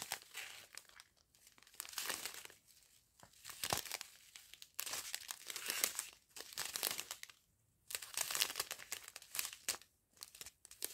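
Clear plastic sachets of diamond painting beads crinkling as they are handled and turned over, in irregular bursts with short pauses.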